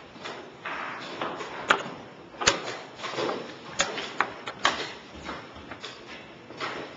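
Chess pieces and a chess clock clicking and tapping during play: a handful of sharp wooden clicks at irregular intervals, clustered in the middle seconds, over a low background of room noise.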